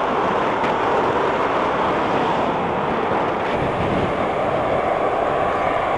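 Boeing 737-800's CFM56-7B jet engines heard on final approach to land, a steady rushing noise that holds at an even level.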